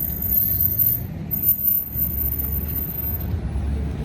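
Low, steady rumble of a motor vehicle engine idling, with a thin high-pitched whine that stops near the end.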